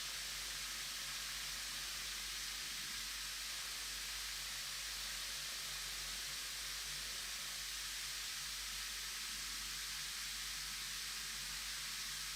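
Bath bomb fizzing in water: a steady, even hiss with no distinct pops or splashes.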